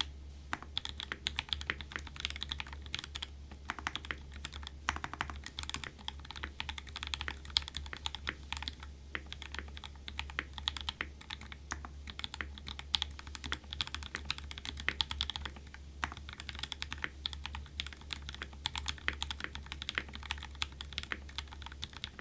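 Continuous typing on a mechanical keyboard with lubed 43 Studio Obsidian Pro v2 linear switches, in a Rune & Smith Iron165 with an aluminium plate and GMK keycaps. The keystrokes come as a rapid, uneven stream.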